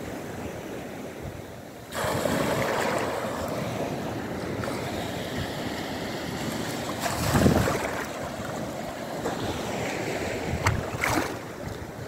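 Small sea waves washing and breaking in the shallows, with wind on the microphone. The wash gets louder about two seconds in, and there is a louder rush a little past the middle.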